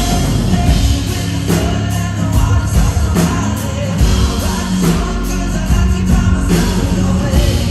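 Live band music with a man singing lead into a microphone over drums.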